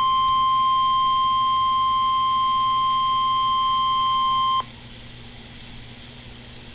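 Emergency Alert System attention tone: a single steady, high-pitched tone (the National Weather Service 1050 Hz warning alarm) that cuts off suddenly about four and a half seconds in. It leaves only a low hum and faint hiss on the broadcast line. The tone signals the start of a severe thunderstorm warning.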